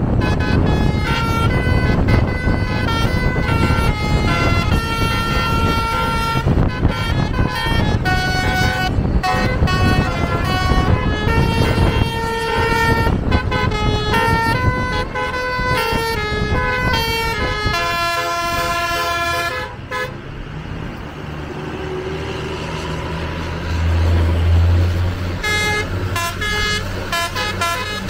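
Bus's basuri (telolet) musical horn playing a tune of quick stepped notes, which stops about twenty seconds in. The bus engine runs underneath, swelling to a loud low drone a few seconds later, and the horn notes start again near the end.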